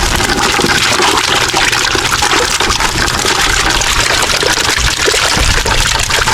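Water streaming and splashing steadily out of a wire pinfish trap as it is hauled up full of bait fish.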